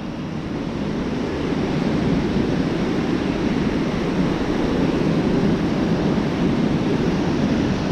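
Ocean surf washing on a beach: a steady rushing noise that swells slightly over the first couple of seconds, then holds.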